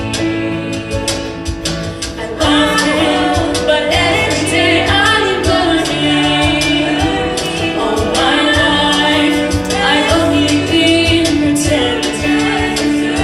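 Female show choir singing through microphones over an instrumental accompaniment with a steady beat; the voices swell in loudly about two and a half seconds in.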